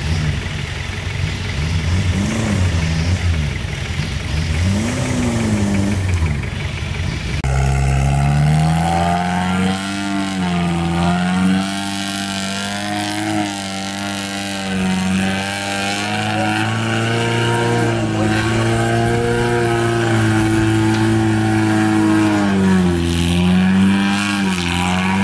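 Off-road 4x4's engine revving under load as it climbs a steep mud slope, its revs swinging up and down. About seven seconds in the sound switches abruptly to a steadier, held engine note that sags and picks back up a few times as the wheels work for grip.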